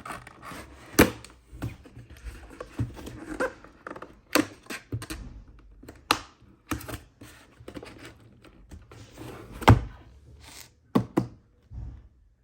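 Irregular clicks and knocks from handling a YUNZII retro keyboard and its keys. Two knocks stand out, one about a second in and one near the end, followed by a quick run of clicks.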